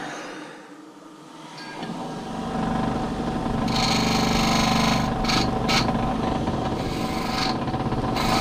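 Electric grinder switched on and spinning up into a steady hum, then several rasping bursts of grinding as the squashed end of a bicycle cable outer is held against the wheel to square it off and clean it.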